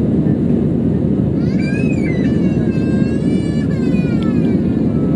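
Steady cabin rumble inside an Airbus A319 climbing after takeoff: engine and airflow noise heard from a seat over the wing. About a second and a half in, a higher pitched sound that rises and falls joins it for about three seconds.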